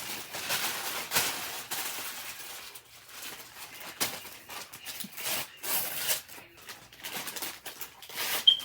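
Wrapping paper being torn and crumpled, in irregular rustling bursts, as a Christmas present is unwrapped. A brief high squeak near the end is the loudest moment.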